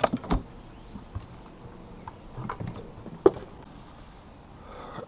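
Scattered sharp knocks and clicks of fishing gear being handled in a small boat, a quick cluster just after the start and a single sharp knock a little after three seconds, with faint high bird chirps behind.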